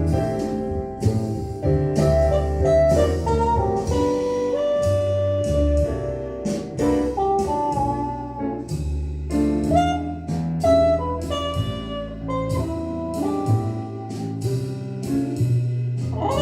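Instrumental jazz break of a vocal jazz song, a saxophone-led solo over piano, double bass and drums, played back as an audio test of a restored Sansui AU-11000A amplifier.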